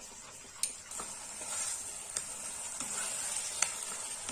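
Spoon stirring thickening halwa in a kadhai over a high flame: a steady sizzling hiss, with the spoon clicking and scraping against the pan several times.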